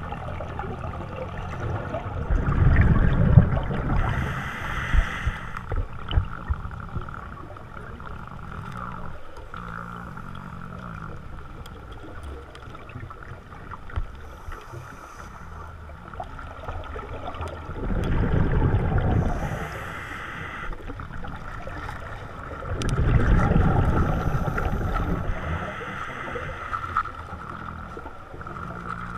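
Scuba diver breathing underwater through a regulator: three long gurgling rushes of exhaled bubbles, with quieter hissing breaths between, over a steady underwater hum.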